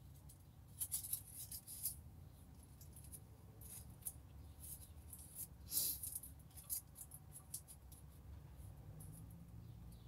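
Close-up chewing and mouth sounds: scattered soft clicks and crackles, the loudest about six seconds in, over a low steady background rumble.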